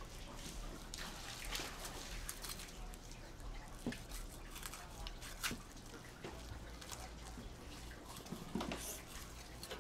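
Quiet wet sounds of a knife and gloved hands working raw swordfish flesh as the fish is cut into loins, with scattered soft clicks over a low steady hum.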